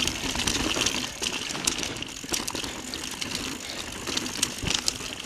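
Mountain bike running down a dirt trail: a steady rush of tyre and riding noise, broken by many sharp clicks and rattles as the bike goes over bumps.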